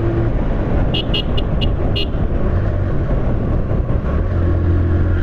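Steady road and engine noise while riding a motorcycle through traffic, with a horn giving five quick high-pitched toots about a second in.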